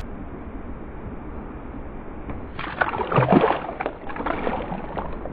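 A released catfish splashes and thrashes at the surface beside a canoe, starting about two and a half seconds in and lasting around two seconds. Before the splash there is only a low, steady haze of water and wind.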